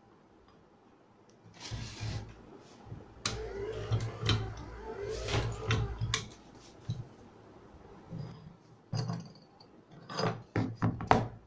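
Homemade 12-volt electric hammer press working: a low hum with clunks and knocks for about four seconds, then shorter bursts of knocking and clicking near the end.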